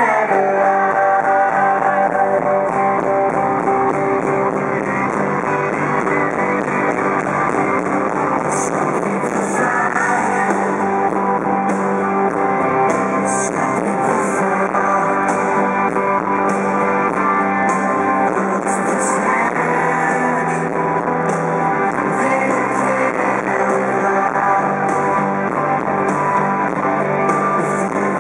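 Pop-rock band playing live, heard from the audience: strummed electric guitars, drums and a male lead voice singing.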